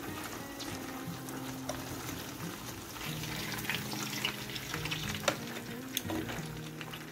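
Gram-flour-coated chicken pieces frying in hot oil in a nonstick pan, crackling and spitting steadily as they are turned with tongs, with a sharper click about five seconds in. Soft background music with slow held notes plays underneath.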